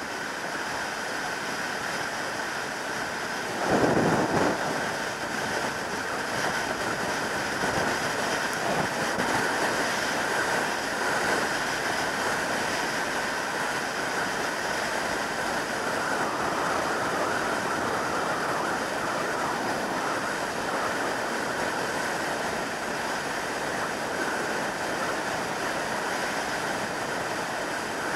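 Steady rush of wind noise over the microphone on a motorcycle riding at motorway speed, with one loud wind buffet about four seconds in.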